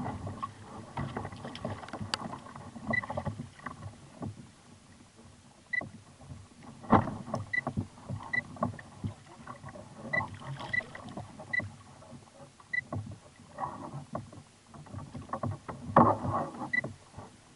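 Water sloshing and splashing against a kayak hull as a large hooked corvina thrashes at the surface beside it, with irregular knocks and clicks. The splashing is louder about seven seconds in and again near the end.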